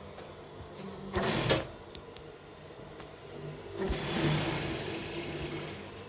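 Electric sewing machine running in two spells of stitching, a short one about a second in and a longer one past the middle, over a steady low hum.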